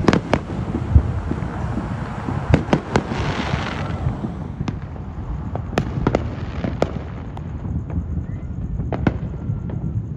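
Fireworks going off: a string of sharp pops and bangs at irregular intervals, with a hissing crackle about three seconds in, over a steady low rumble.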